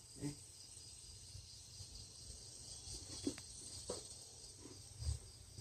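Insects chirping in a steady high drone, with a few faint soft knocks now and then.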